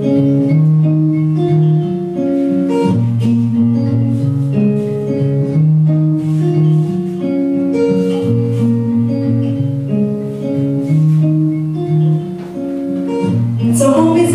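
Guitar music: a repeating phrase of plucked, ringing notes. A brighter, fuller sound comes in just before the end.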